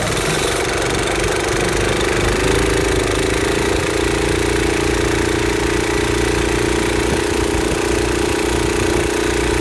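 Lawnmower engine driving a 6 hp Johnson outboard's lower unit, running steadily; its pitch rises a little about two to three seconds in and then holds.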